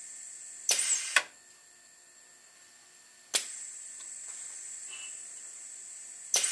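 Pneumatic air cylinder cycling a rubber ram onto a 1500 ml resuscitator bag. Twice, about a second in and again near the end, a valve clicks and air exhausts loudly for half a second. A sharp click a little past halfway brings back a steady hiss of air.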